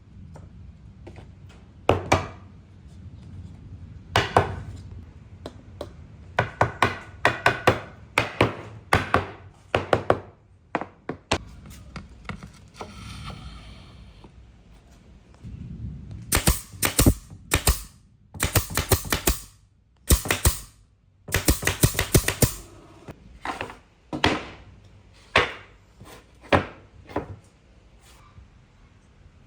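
Repeated sharp knocks on wood, some single and some in quick runs of several strokes, over a low rumble.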